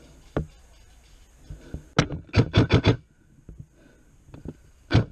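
Sharp cracks of airsoft gunfire: a single shot about two seconds in, then a quick burst of about five shots in half a second, with another single crack near the end and a fainter one early on.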